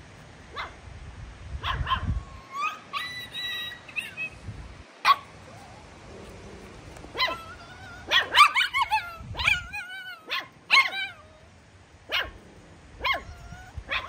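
Puppy yips and whines: short high-pitched yelps scattered throughout, a drawn-out whine about three seconds in, and a quick run of yaps past the middle.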